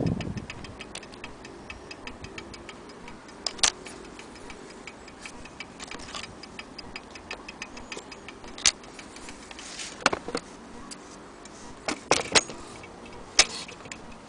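Vintage mantel clock movement ticking quickly and evenly, with a few louder knocks and taps from the case being handled.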